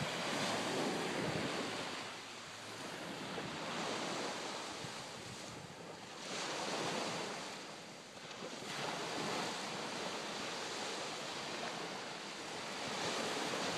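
Ocean surf breaking on the beach, a noisy wash that swells and eases every few seconds, with wind buffeting the microphone.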